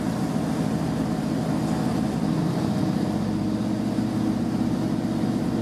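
Steady drone of a Class 153 diesel railcar heard from inside the passenger saloon: the underfloor Cummins diesel engine running, with a low rumble and hum that holds steady.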